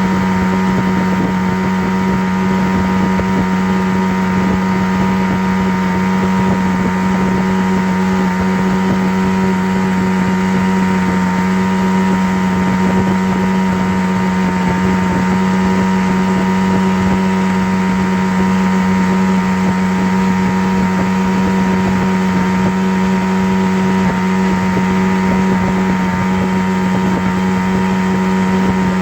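A steady, unchanging low drone: a strong hum just under 200 Hz with fainter higher tones over an even hiss.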